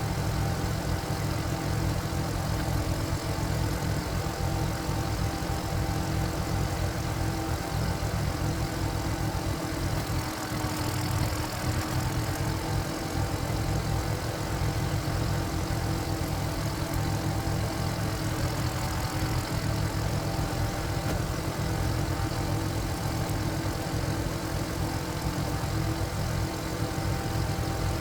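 Walking tractor's single-cylinder diesel engine running steadily at an even speed.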